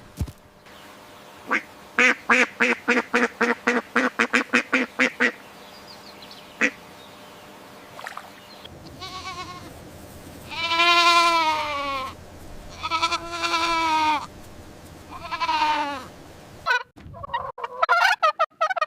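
Farm animal calls: a quick run of about fifteen short quacking calls, then three long, wavering calls like bleats.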